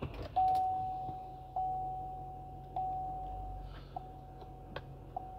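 Silverado's dashboard warning chime sounding five times, about one every 1.2 seconds, each a single steady tone that fades. Underneath, the low steady hum of the truck's 6.6-litre Duramax diesel, just started and idling.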